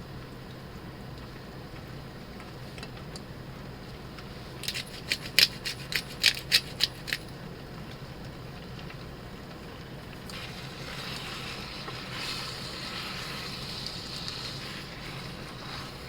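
Kitchen work sounds over a low steady hum: a quick run of about nine sharp clicks or taps a little before the middle, then a steady hiss starting about ten seconds in.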